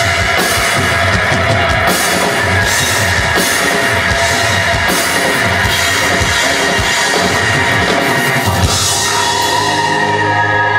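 A live rock band playing loud, with distorted electric guitar and a driving drum kit. The drums and cymbals ease off near the end.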